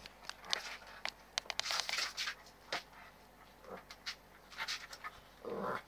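A puppy scampering and playing: quick scrabbling of paws and claws on the floor and blanket, with many sharp little clicks and scuffles, and a louder rasping sound near the end.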